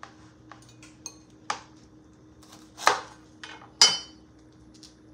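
Kitchen knife trimming Brussels sprouts on a plastic cutting board: scattered short knocks and taps of the blade on the board, the two loudest about three and four seconds in, the last with a brief metallic ring.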